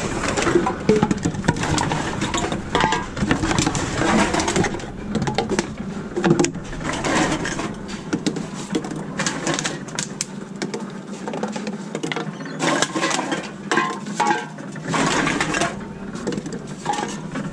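Reverse vending machine running as drink containers are fed in one after another: a steady motor hum under constant irregular clattering and rattling of cans and bottles.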